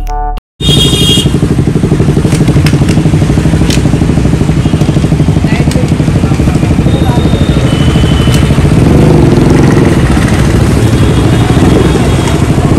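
A vehicle engine running steadily, with a rapid, even pulse in its sound; it starts and stops abruptly.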